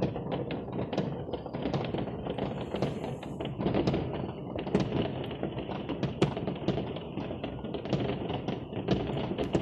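Many fireworks and firecrackers going off at once in a dense, continuous crackle of pops, with a few louder bangs scattered through it.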